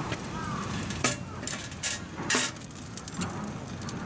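Steel tongs clinking against a stainless-steel smoker pot and a metal tray with a wire rack as pieces of smoked meat are lifted out. A few sharp clinks come about a second in and near two seconds, then a louder one around two and a half seconds, over a steady background hiss.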